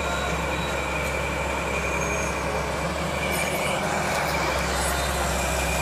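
Excavator's diesel engine running steadily, a low hum with a thin, steady high-pitched whine over it.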